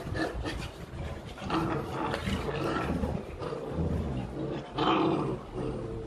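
Rottweilers growling in play: a run of irregular, rumbling growls, loudest about five seconds in.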